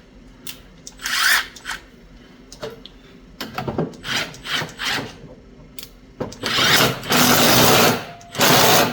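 A power tool running in several short bursts, then in longer, louder runs near the end.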